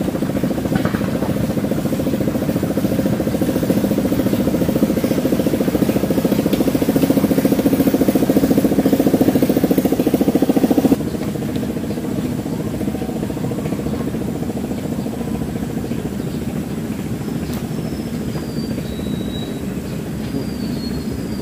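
Small boat engine running steadily with a fast even pulse; its level drops suddenly about halfway through and it runs on quieter. A few short, high, falling chirps come near the end.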